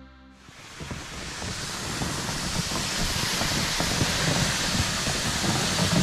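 Wind buffeting the microphone outdoors, a steady rushing noise with a flickering low rumble that comes in just after the start.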